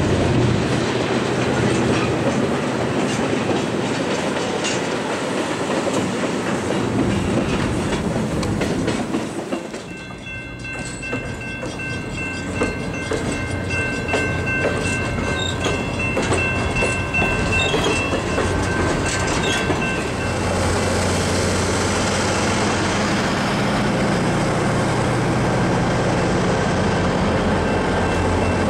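A passenger train rolling over a steel bridge, its wheels clicking over the rail joints. About ten seconds in, coaches and a caboose pass at slow speed with a steady high-pitched wheel squeal. Near the end the low rumble of an EMD GP30 diesel locomotive's engine grows as the locomotive draws alongside.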